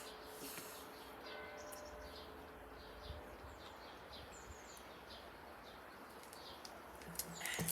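Quiet outdoor background with small birds chirping repeatedly, short high chirps scattered throughout.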